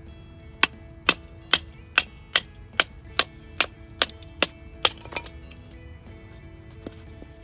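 Firewood being chopped: about eleven sharp wooden knocks in even succession, a little over two a second, that stop a little past the middle. Background music with steady tones plays underneath.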